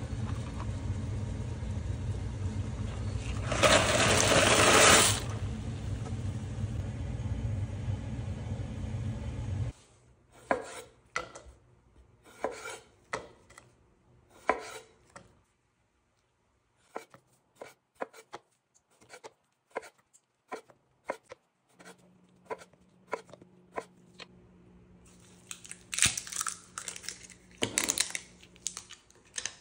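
A pot of water at a rolling boil on the stove, with a louder rush about four seconds in, gives way to a knife slicing cherry tomatoes on a wooden cutting board in short, spaced strokes. Near the end come two louder scraping rushes as the lid is twisted off a glass jar of olives.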